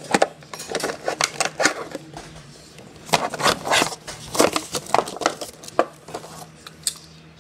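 Clear plastic blister pack and its cardboard backing being pried and torn open by hand to free a die-cast toy monster truck: a run of irregular sharp crackles and clicks that thins out near the end.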